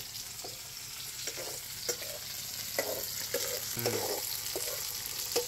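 Adamant creeper stems, shallots and dried red chillies sizzling in oil in a metal kadai while being stir-fried, a steel ladle clicking and scraping against the pan at irregular intervals.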